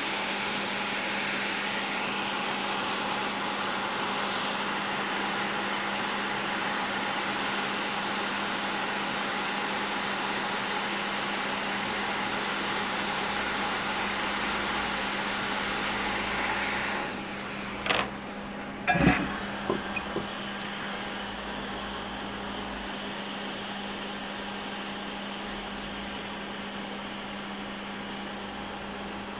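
Hot air rework station blowing a steady rush of hot air to reflow solder under a replacement MOSFET on a graphics card board. The airflow stops a little over halfway through, followed by a few sharp clicks and taps, over a steady low hum.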